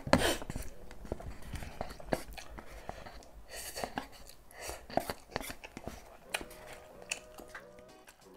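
Close-up eating sounds from a paper cup of spicy instant noodles: wooden chopsticks clicking and scraping against the cup, with slurping and chewing. A noisier slurp comes about three and a half to four seconds in, as the cup is tipped to the mouth.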